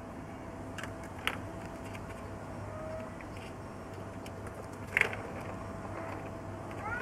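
Steady low outdoor background hum, with two sharp clicks: a light one about a second in and a louder one about five seconds in.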